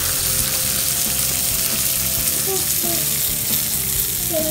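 Skewered prawns sizzling on a hot grill plate over a stove: a steady sizzle of juices and marinade cooking on the metal.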